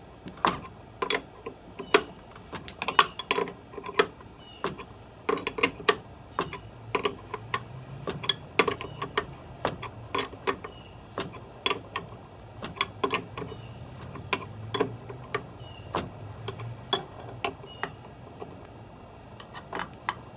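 Hosetract LB-330 hose reel being handled and worked on: scattered, irregular clicks and clacks of its plastic and metal parts, with a low rumble through the middle stretch.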